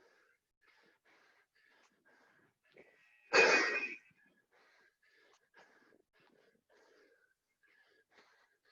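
A person's breathing, with one loud, sharp burst of breath about three and a half seconds in that fades within a second.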